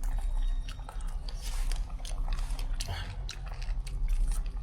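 A man biting and chewing stewed pork ribs close to the microphone: irregular small clicks and crunches of eating, over a steady low hum.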